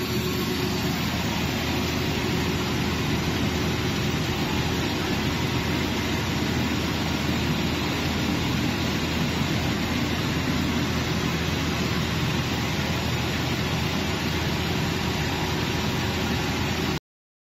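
Screw press dewatering paper pulp, running with a steady, even mechanical din among the mill's machinery. It cuts off suddenly near the end.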